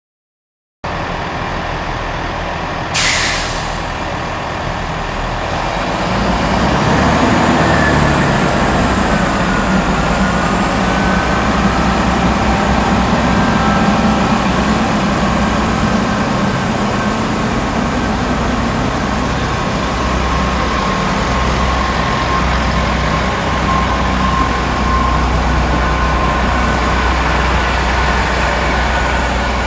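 Diesel train leaving a station. A short sharp hiss of its air brakes being released comes about three seconds in, then the engine noise builds, with a gliding whine, as the train pulls away and runs on steadily.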